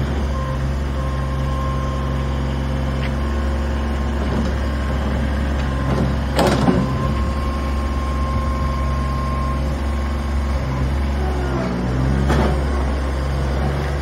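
Bobcat 463 compact skid steer loader running, its small diesel engine holding a steady drone while the machine drives and turns, with a thin steady whine over it for a while. Two brief louder rattles come about halfway and near the end.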